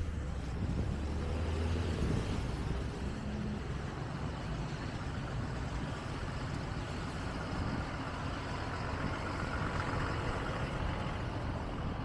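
Street traffic on wet, slushy pavement: a car passes close by, its engine rumble and tyre hiss strongest for the first few seconds and fading out about three and a half seconds in, over a steady hiss of traffic.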